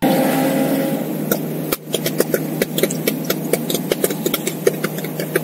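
Car cabin at highway cruising speed: a steady engine drone over road and wind noise, with scattered sharp clicks throughout.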